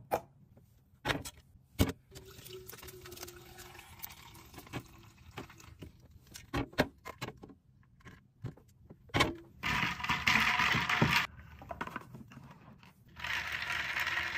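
Sharp clinks and taps of a glass pitcher and its metal lid, then ice rattling in a clear plastic tumbler in two loud spells, in the middle and near the end, as creamer is poured over iced coffee.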